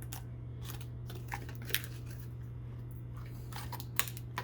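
Cardboard box lid being handled, with a few scattered sharp clicks and crackles as small perforated spots are punched out of the card.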